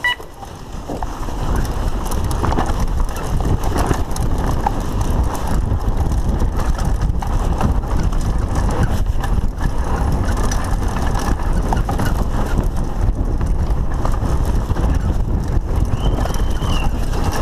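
Opens with the last, higher beep of the race start timer. Then the steady rush of wind on a camera's microphone and the rattle and knocking of a Lapierre Spicy mountain bike racing down a rough dirt trail build up over the first two seconds as it gathers speed. A short, high squeal comes near the end.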